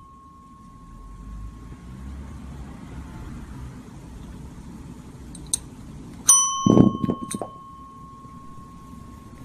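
A desk service bell's ring fades away. About six seconds in, the bell is struck again and rings on, with a few dull thumps and clicks just after the strike.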